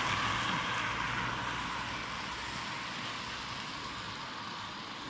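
A road vehicle driving away, its engine and tyre noise slowly fading.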